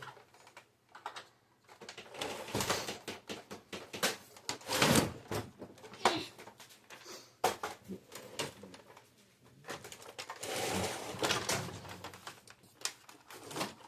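Printer being taken apart by hand: irregular clicks, knocks and scraping as its plastic parts are pried and handled.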